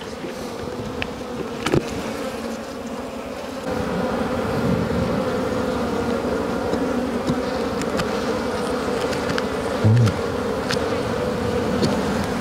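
A colony of wild honeybees buzzing in a steady hum as their nest is cut open, the hum growing louder about three and a half seconds in. A few faint clicks and a short low bump near the end.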